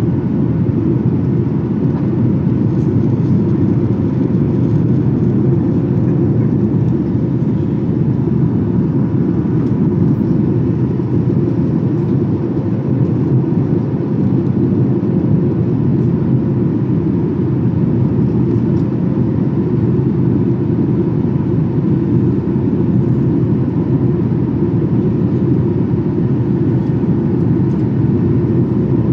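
Steady roar inside the cabin of a Boeing 737-800 in the climb after takeoff, heard at a window seat over the wing: the CFM56-7B engines and airflow make a deep, even noise with a faint steady hum on top.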